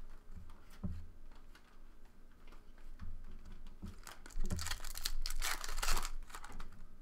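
Foil trading-card pack wrapper being torn open and crinkled, loudest about four and a half to six seconds in, with a few soft knocks of hands and cards on the table.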